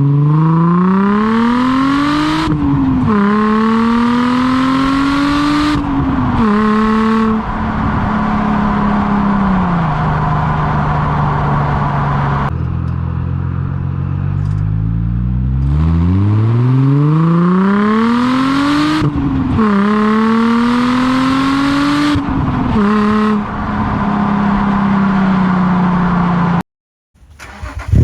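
2003 Nissan 350Z's 3.5-litre VQ35DE V6 running through a Z1 Motorsport Y-pipe with resonator and single-exit race exhaust, silencer fitted. The engine revs up twice: each time the pitch climbs, drops back, climbs again more slowly, then settles to a steady idle. The sound cuts out briefly near the end.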